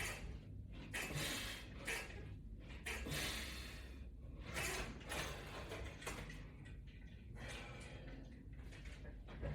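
Faint, repeated breaths, one about every second, from a person working through resistance-band presses.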